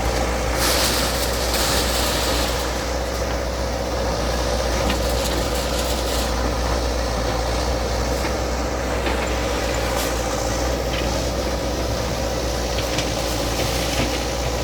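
Bulldozer engine running steadily, a continuous low drone with a steady hum.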